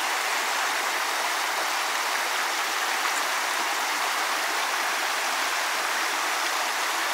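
A small creek running steadily over a rocky bed.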